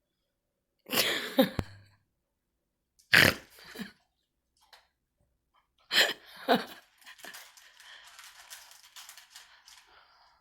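A pet's short, gruff vocal sounds, three of them at a few seconds' spacing, then faint irregular crackling.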